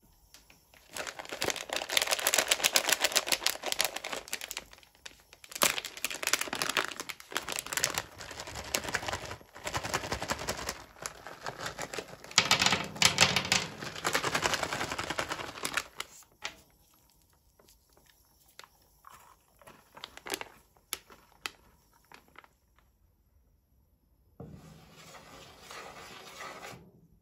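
Plastic snack bag of Kit Kat Pops crinkling as it is handled and shaken, with the small chocolate balls clicking and rattling as they drop and roll onto the stainless-steel ice-cream-roll cold plate. Then a scatter of single clicks as the balls settle, and a short rustling scrape near the end.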